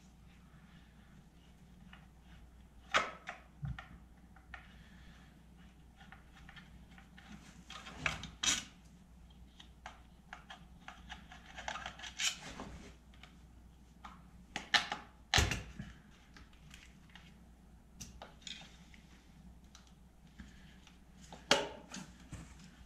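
Scattered small clicks, taps and scrapes of a screwdriver undoing the screws of a wall socket's faceplate and easing the plate off its back box.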